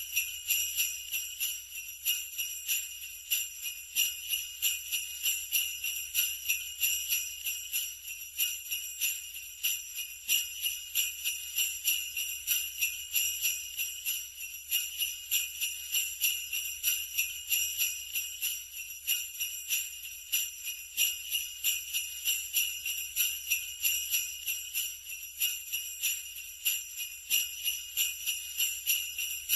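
Sleigh bells jingling continuously, shaken in a steady rhythm of about two to three shakes a second.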